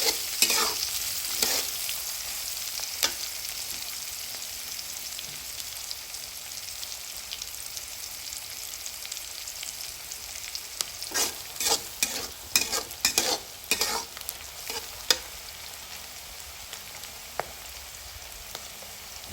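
Chopped onion and chillies sizzling in hot oil in a kadai. A spatula scrapes and knocks against the pan now and then, most of the strokes in a run about eleven to fifteen seconds in.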